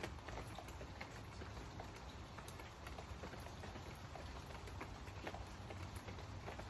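Steady rain, with many separate drops pattering in an irregular scatter of small ticks.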